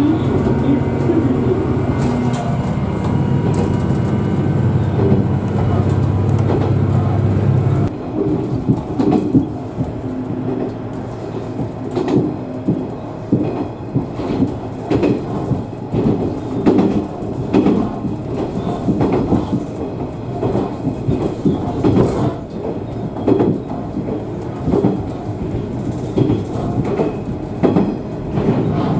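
Onboard a diesel railcar: the engine runs under power with a steady low hum, which drops away about eight seconds in, leaving the wheels clattering over rail joints and the car rattling as it coasts along.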